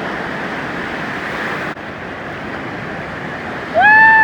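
Steady rush of ocean surf with wind on the microphone, broken by a short dropout about halfway through. Near the end a loud, high, held call starts with a quick rise in pitch.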